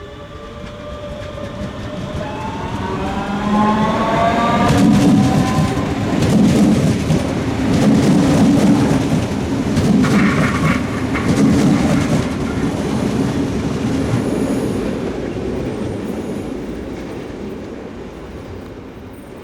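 A DB Class 425/426 electric multiple unit accelerating past, its traction motors whining with several tones that rise in pitch, then its wheels rumbling and clattering over the rails as the cars go by, loudest in the middle and fading away.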